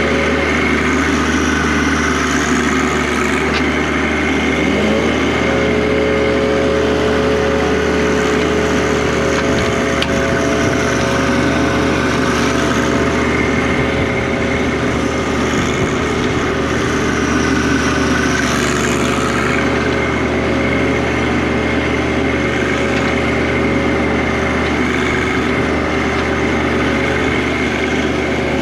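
John Deere compact tractor's diesel engine running steadily at working speed while its front-loader grapple works, rising in pitch about five seconds in as the engine is revved.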